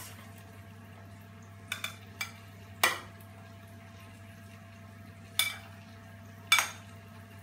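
A metal slotted spoon clinking and scraping against a stainless steel roasting tray and a ceramic bowl as roasted vegetables are scooped across. There are several sharp clinks, two close together early and others near the middle and toward the end, over a low steady hum.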